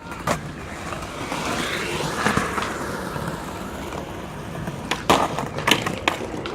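Skateboard rolling, its wheels making a continuous rumble on the ground, with a sharp clack shortly after the start and several loud clacks of the board near the end.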